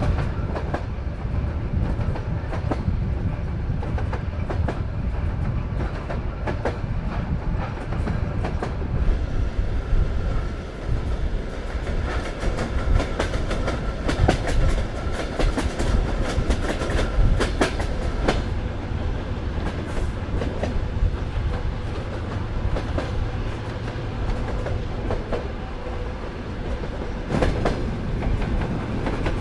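Soviet-built sleeper train running along the line, its wheels clacking over the rail joints over a steady low rumble.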